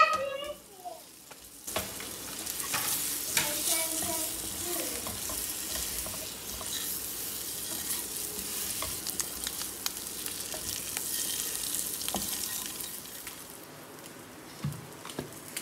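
A brief high-pitched sound at the very start. Then oil sizzles in a non-stick kadai as whole boiled eggs are stirred and coated with fried onion, green chilli and spice masala, with clicks and scrapes from a wooden spatula. The frying quietens near the end.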